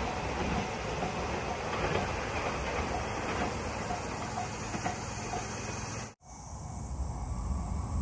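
A two-car train running away along the track, its wheels rumbling and clacking on the rails, while a level-crossing bell dings faintly and evenly about two or three times a second. The sound cuts off abruptly about six seconds in, leaving a quieter outdoor hush.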